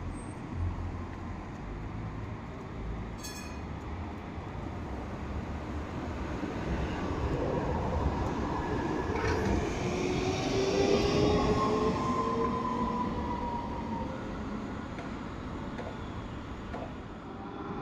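A tram passing by: its rumble and electric motor whine build to a peak about eleven seconds in, then fade, the whine shifting in pitch as it goes. A brief high ringing tone sounds about three seconds in.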